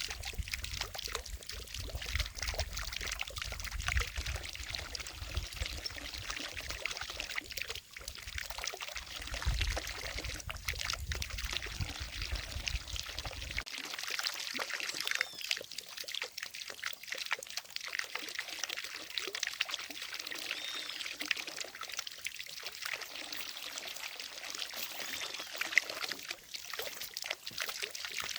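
Water from a fountain falling and splashing into a lake, a steady pouring trickle. A low rumble underneath cuts off suddenly about halfway through.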